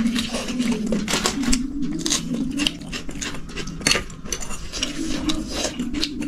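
Close-up eating of roast chicken and chow mein: crunching and chewing with quick clicks of cutlery and dishes, over a steady low hum.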